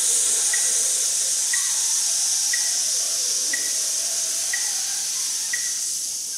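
A long, steady 'tsss' sizzle: a person hissing a full breath out through the teeth over eight counts in a brass breathing exercise, fading slightly near the end as the lungs empty. A soft tick marks each count about once a second.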